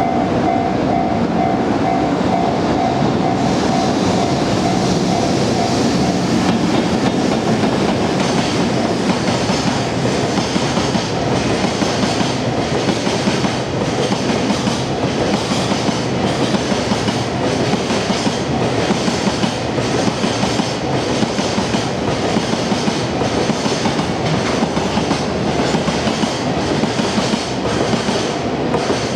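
Freight train rolling past close by, its wheels clacking in a steady rhythm over the rail joints. A Japanese level-crossing warning bell dings rapidly for the first six seconds or so, then is lost under the train, and is heard again at the very end.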